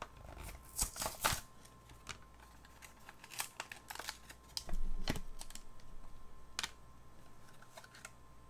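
Clear plastic blister pack of a die-cast toy car being prised open and torn from its cardboard backing by hand: irregular crinkling, crackling and clicking of the plastic, with louder crackles about a second in and around the middle.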